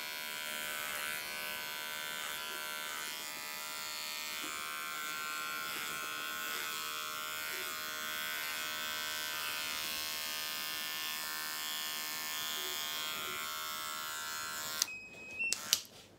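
Electric hair clippers with a number 3 guard running with a steady buzz as they trim the tips of wet hair at the nape. The buzz cuts off suddenly near the end, followed by a few short clicks.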